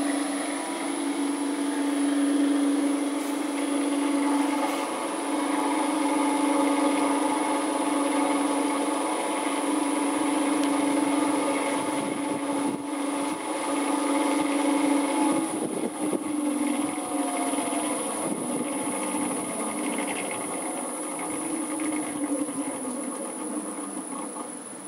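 Vintage Crompton 7.5 hp electric motor running unloaded off a variable frequency drive: a steady hum with a thin high whine, and a bearing complaining slightly, which the owner calls its only problem. It grows a little quieter near the end.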